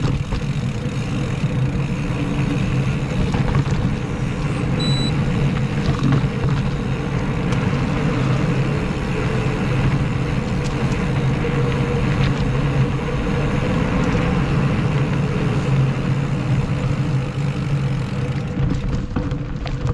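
Mountain bike rolling steadily along a dirt and concrete forest trail: the constant rush of tyre noise, drivetrain and wind on the handlebar-mounted camera's microphone. A short high beep sounds once about five seconds in.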